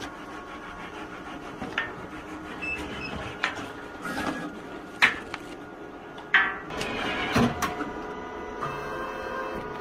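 A sheet of cut hexagon labels is handled and a label peeled off its backing, giving a few sharp paper crackles and snaps, over the steady hum of a Graphtec CE7000-40 cutting plotter. Near the end the machine's sound changes as a motor starts up.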